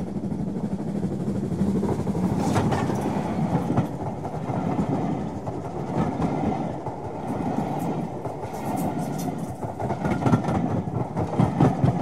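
A train running past, a steady rumble of wheels on rails with irregular clicks over the rail joints, getting louder and more uneven near the end.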